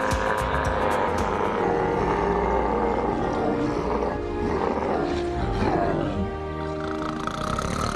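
Music with an animal-like roar over it, its pitch falling in a few sweeps around the middle.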